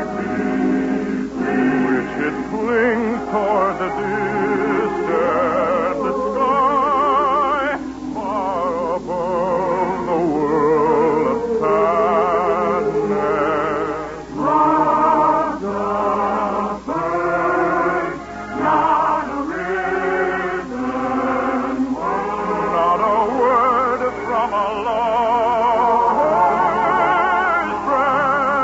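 Operatic singing with a wide vibrato over musical accompaniment: long held, wavering notes in a continuing sung number.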